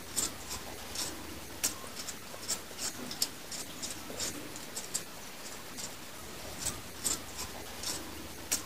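Freshwater mussel-shell peeler scraping the skin off a raw beetroot in short, irregular strokes, a few a second.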